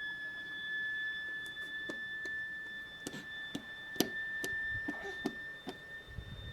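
A persistent, unexplained high-pitched tone holding one steady pitch with a fainter higher overtone, never wavering, with a few scattered faint clicks.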